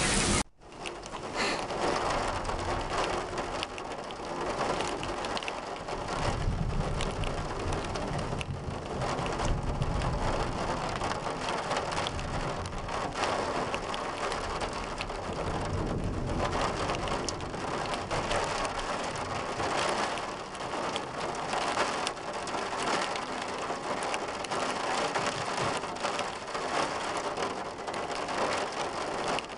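Steady heavy rain falling on pavement, with a low rumble of thunder about six to nine seconds in. The sound cuts out for a moment about half a second in.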